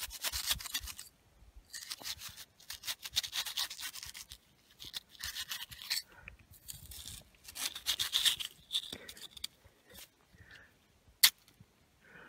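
Several bursts of rapid scraping strokes, each lasting a second or two, then a single sharp click near the end.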